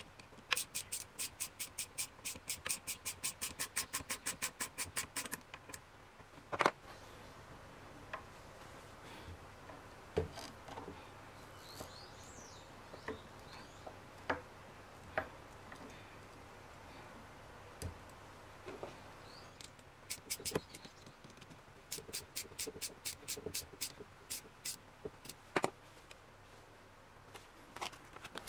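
Rapid, even clicking, about six clicks a second, as a band hose clamp on a braided hose is tightened with a screwdriver. There is a long run of clicks near the start and shorter runs about two-thirds of the way through, with scattered single knocks of the metal hose fittings being handled in between.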